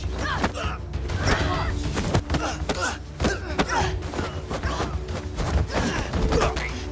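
Action-film soundtrack: background music under repeated thuds and short bursts of voices.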